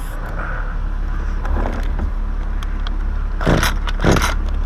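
Chainsaw starter cord yanked twice near the end, the engine not catching, over a steady low rumble. Before that come a few light scrapes and clicks.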